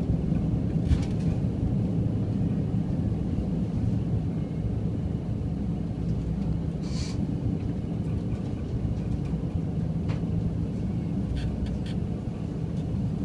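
Steady rumble and running noise inside the passenger cabin of a diesel express train on the move. There are a few clicks of the wheels over rail joints and points, and a short hiss about seven seconds in.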